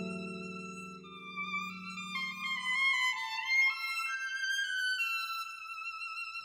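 Background music led by a violin: a high melody steps up and down over a long held high note, while lower sustained notes underneath stop about three seconds in.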